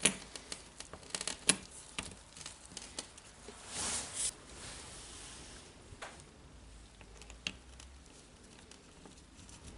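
Scattered small clicks and taps of small metal parts being handled and seated: clutch pins being fitted down onto the balls of a Makita DDF456 drill's clutch. There is a short rustle about four seconds in, and the clicks thin out in the last few seconds.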